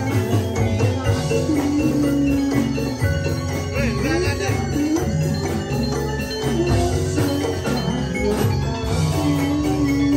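Gamelan-style music: ringing tuned metal percussion over a steady, repeating drum beat.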